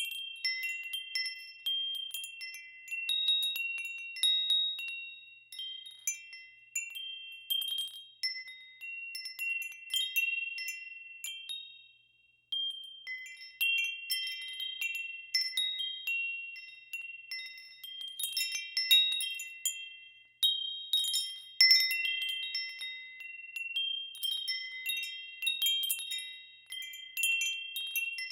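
Wind chimes ringing in irregular clusters of high, clear tones, struck again and again as they swing. About twelve seconds in they die away almost to silence for a moment, then start ringing again abruptly.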